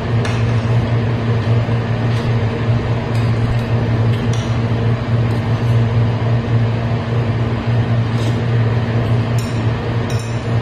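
Steady low hum of a running appliance or motor, with a few light clinks of a spoon and fork against a plate and bowl.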